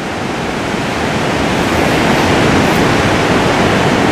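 Steady rush of the Jinsha River's rapids in the gorge, a dense, even noise of fast water that grows a little louder over the first two seconds.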